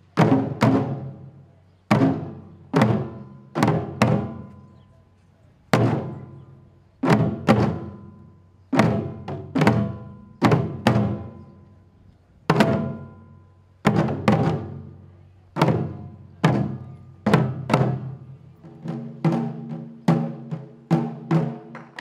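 Taiko drums struck with wooden sticks, each heavy stroke ringing out and fading. The strokes come one or two a second in an uneven pattern of single and paired hits. Near the end they quicken into faster, lighter strokes.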